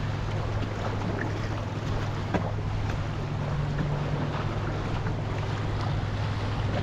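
Steady wind noise on the microphone over the wash of ocean surf.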